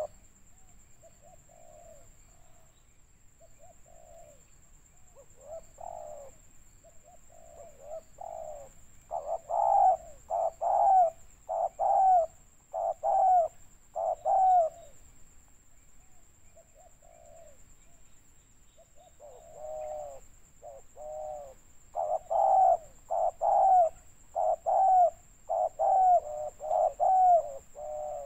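Spotted dove cooing: repeated short coos at about one a second, soft at first, then two loud runs, one in the middle and a longer one near the end.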